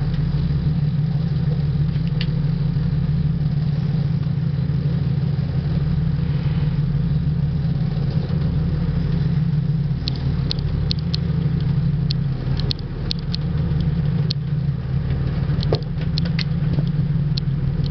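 Sportfishing boat's engine running steadily, a constant low drone. From about halfway through, a scatter of short sharp clicks sounds over it.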